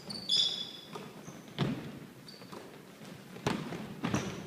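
Basketball game on an indoor court: sneakers squeak briefly near the start, then a few separate thuds of the ball hitting the floor.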